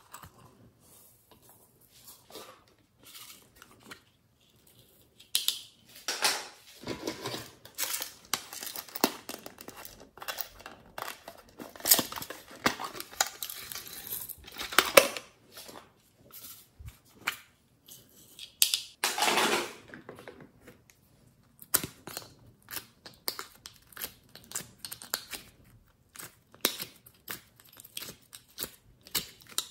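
Hands handling plastic makeup cases and slime: clicks and knocks of plastic compacts being opened and tipped out, with crinkling and scraping. The handling is sparse for the first few seconds, busy from about six seconds in, with a longer noisy stretch around nineteen seconds, then lighter again.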